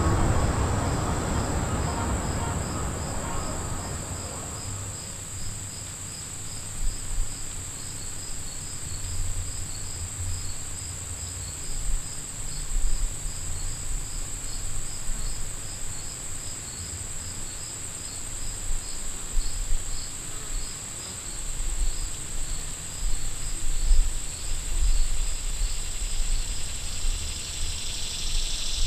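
Insects chirping, likely crickets: a regular train of high chirps over a continuous high buzz, with low irregular rumbles underneath. A louder broad noise fades out over the first few seconds.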